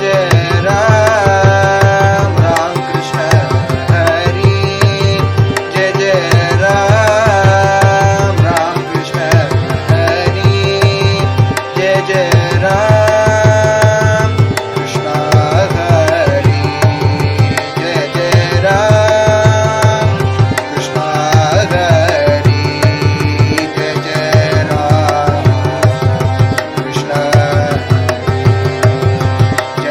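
Devotional bhajan in raga Kapi: a voice singing with ornamented slides over sustained harmonium accompaniment, with a steady mridangam rhythm underneath.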